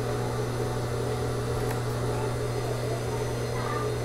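Steady low electric hum of an industrial sewing machine's motor idling with the needle still, no stitching.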